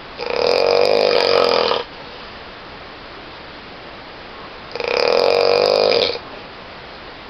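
A person snoring loudly: two long snores, each about a second and a half, some four and a half seconds apart, with a steady hiss in between.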